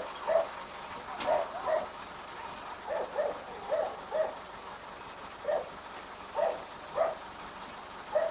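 A dog barking, short sharp barks at irregular intervals, often two in quick succession, about a dozen in all, over a faint steady hiss.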